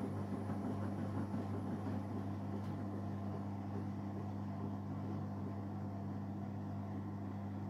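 AEG washing machine running a spin cycle: a steady low hum with rumble from the spinning drum. Its owner reports a banging sound during spin since the drum was replaced.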